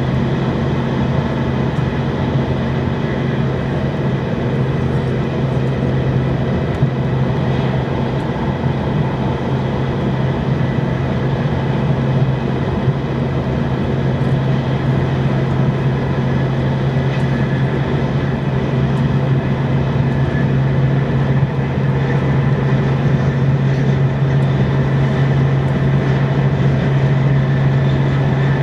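TGV high-speed train running at speed, heard from inside the carriage: a steady low hum over an even rushing noise, growing a little louder about three-quarters of the way through.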